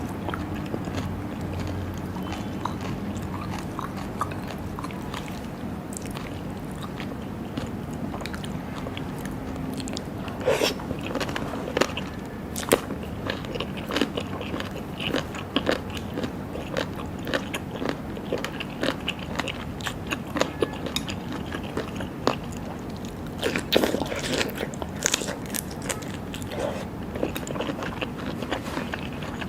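Close-up eating sounds of raw seafood: biting and chewing, with many sharp wet clicks and smacks from about ten seconds in, over a steady low hum.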